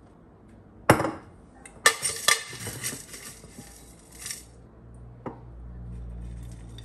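A glass jar set down on a stone countertop with a sharp knock, then clinks and rattling as a metal measuring scoop digs granola out of the glass jar for a couple of seconds, with a lighter tap a little later.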